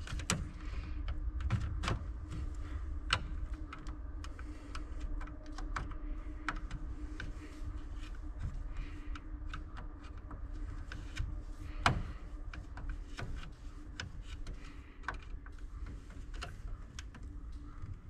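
Small irregular clicks and scrapes of a screwdriver and a copper wire being worked at a circuit breaker's terminal screw as the wire is seated and the screw tightened, with one sharper click about two-thirds through. A faint steady hum runs underneath.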